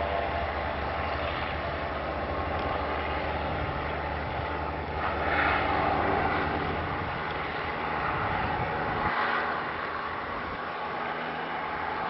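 Zeppelin NT airship's piston engines and propellers running during take-off: a steady low engine drone with a rushing propeller sound that swells about five seconds in and again near nine seconds, after which the deepest part of the drone drops away.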